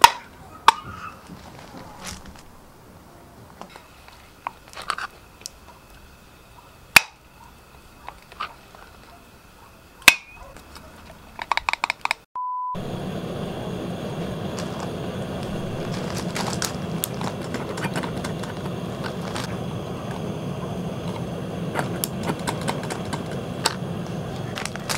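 Scattered sharp clicks and knocks as the wooden burner stand and its parts are handled and fitted, ending in a quick run of clicks; after a short beep about halfway, a steady low rushing noise of a gas burner running under a pot of water, with faint small clicks.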